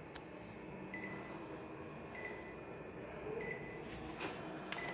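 Short high beeps from a Konica Minolta copier's control panel, about four of them a little over a second apart, as keys are pressed to enter the technical mode. A faint steady machine hum runs underneath, with a couple of soft clicks late on.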